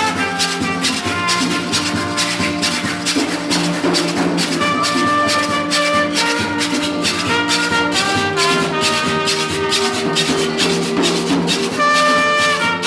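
Bahamian rake 'n' scrape band playing live: a fast, even scraping rhythm, typical of a handsaw scraped with a blade, under held melody notes.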